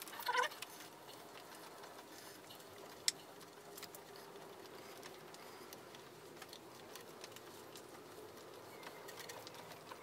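Faint, scattered metallic ticks and clicks of a ratchet wrench and loose bolts being worked out of the water pump, with one sharper click about three seconds in.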